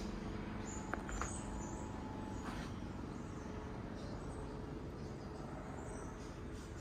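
Quiet outdoor ambience with faint, short, high bird chirps and a few light clicks or creaks.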